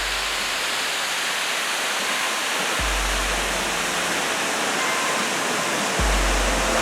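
Steady rushing of a waterfall, with soft background music whose low bass notes come in about every three seconds.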